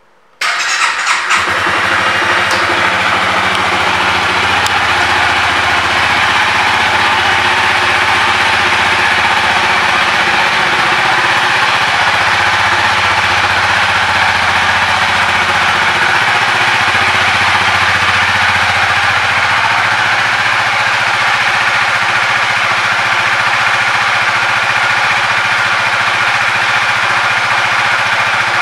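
2017 Honda Rebel 300's single-cylinder engine starting about half a second in, then idling steadily.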